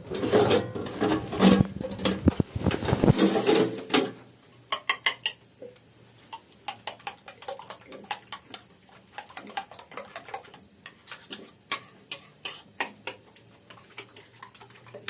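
Loud clattering and rustling for about four seconds, then a long run of irregular small clicks and taps, like small hard objects being handled.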